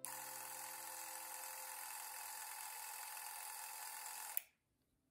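Beaulieu 4008 ZM4 Super 8 camera's motor running with a steady whir while the remote switch is held, stopping suddenly about four seconds in.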